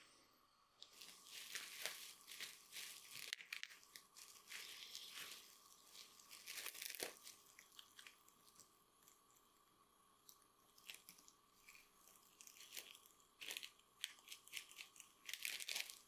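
Thin clear plastic crinkling and rustling in irregular bursts as hands handle and wrap it around a leather shoe. It is busiest in the first few seconds and again near the end.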